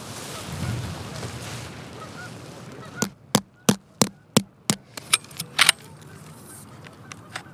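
A hand-held rock striking a tent stake, driving it into gravelly ground: about nine sharp knocks in under three seconds, starting about three seconds in.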